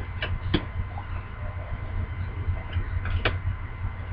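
Trading cards being handled and flipped: a few short taps and slides, the sharpest about half a second in and just after three seconds, over a steady low hum.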